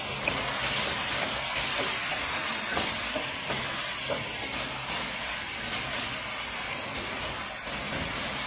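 Creamy chicken handi sizzling in a wok as it finishes cooking, stirred with a wooden spatula that scrapes and knocks lightly against the pan a few times.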